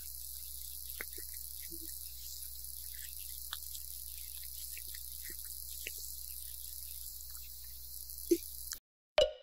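Cat grooming itself, licking its paw and fur: faint, scattered wet licking clicks over a steady hiss. A short louder knock comes near the end, just before the sound cuts off.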